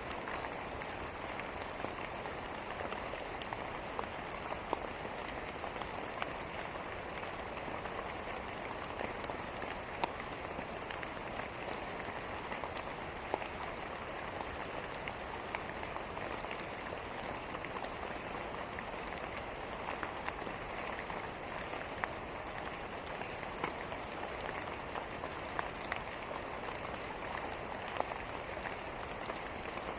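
Steady rain falling on a surface, an even hiss dotted with individual drops striking it.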